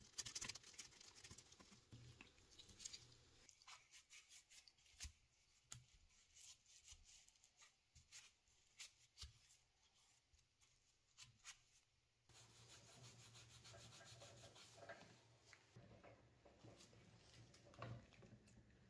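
Near silence, with faint scattered clicks and light rubbing from parts of a cast iron meat slicer being brushed and handled.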